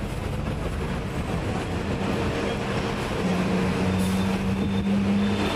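Hong Kong double-decker tram running along the street, heard from the upper deck: a steady rumble of wheels on rails, with a low motor hum that settles into a held tone about three seconds in.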